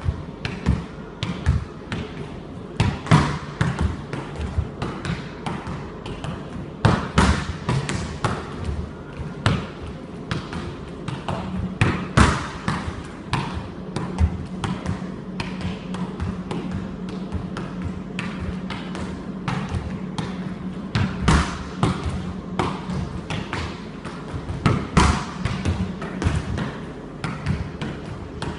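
Football being volleyed against a wall again and again: a long, irregular series of sharp thuds as the foot strikes the ball and the ball hits the wall, without a bounce on the ground.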